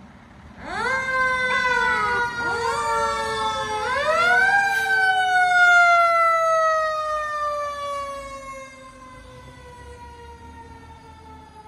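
Fire truck siren starting up as the apparatus leaves the station: several short, sharply rising whoops over the first few seconds, then one long wail that slides slowly down in pitch and fades off about nine seconds in.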